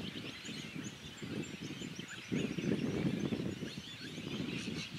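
Wind rumbling and buffeting on the microphone, louder in the middle, with faint bird calls chirping in the background.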